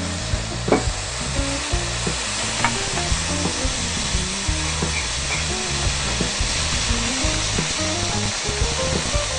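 Kecap-glazed chicken satay sizzling over a charcoal grill: a steady hiss with a couple of sharp pops. Background music plays a melody under it.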